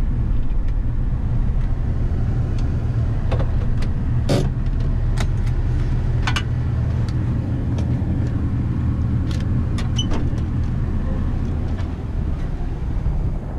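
A car driving: a steady low engine and road rumble, with scattered sharp clicks and ticks over it.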